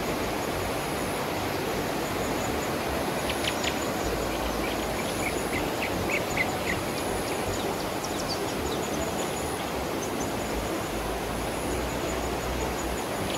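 Steady rush of a fast mountain river running over rocks in rapids, with a few short high chirps a few seconds in.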